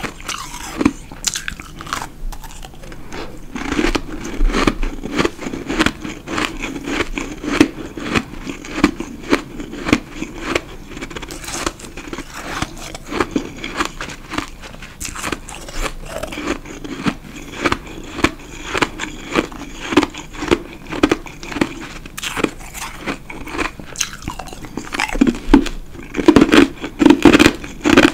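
Close-miked biting and chewing of powdery ice: a bite at the start, then rapid crunching throughout, loudest near the end.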